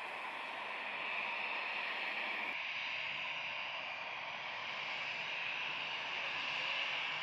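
Airbus A330-900neo's Rolls-Royce Trent 7000 turbofans running at low power as the airliner slows and turns off the runway after landing, a steady rushing hiss.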